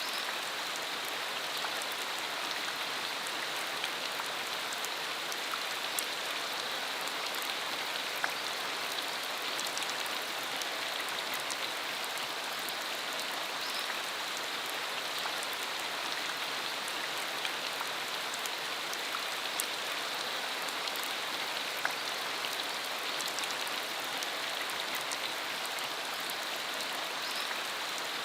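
Steady rain falling: an even hiss with scattered sharp drop impacts.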